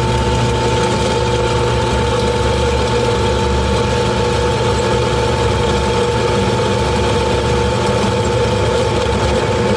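Benchtop drill press running with a spiral-flute step drill (Unibit) boring a hole through steel flat bar: a steady motor hum with a high whining tone over it.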